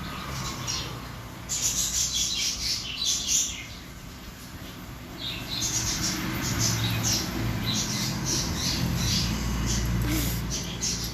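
Baby parrot eating a Marie biscuit: two spells of quick, raspy, crackly sounds, one about a second and a half in and a longer one from the middle on.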